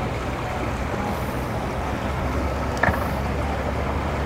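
Low, steady rumble of boat engines running. A single sharp knock sounds a little under three seconds in.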